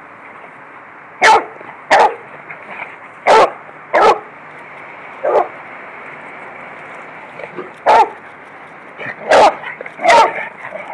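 A dog barking in short, sharp single barks during rough play: about eight barks, irregularly spaced, with a lull of a couple of seconds in the middle.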